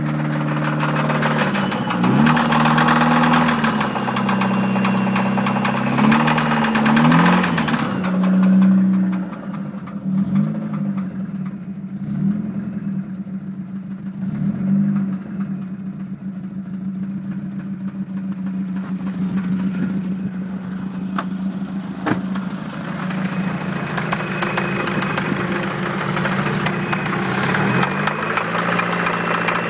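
Dodge Neon four-cylinder engine idling with a rod knock, blipped up in revs and dropping back several times. The knock is the sign of a worn connecting-rod bearing.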